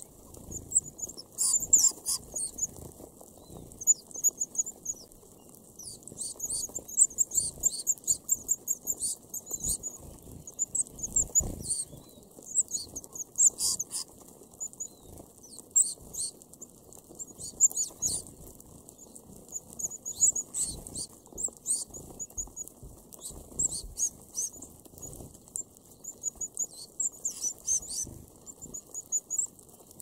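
A feeding flock of red-browed finches giving many short, very high-pitched peeping calls, overlapping in quick irregular bursts, over a soft scratching patter of birds pecking and shuffling in the scattered seed husks.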